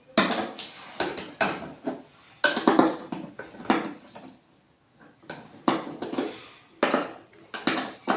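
Irregular metallic clinks and knocks of a 10 mm T-wrench working the bolts of a washing machine's tub support plate, with a brief pause about halfway through.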